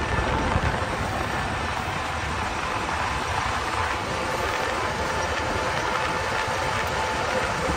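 Self-propelled combine harvester's diesel engine running steadily as the machine drives along a road, with a faint steady whine over the engine noise. Wind rumbles on the microphone in the open cab.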